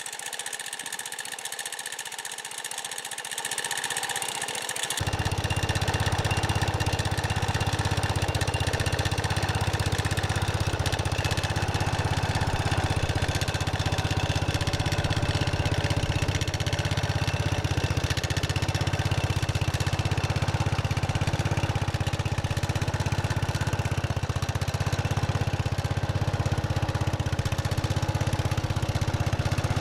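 Cub Cadet 123 garden tractor's single-cylinder Kohler engine idling steadily. About five seconds in the sound turns fuller, with a much stronger low rumble and less hiss on top.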